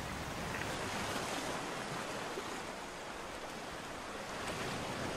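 Ocean surf: a steady rush of breaking waves, swelling slightly near the end.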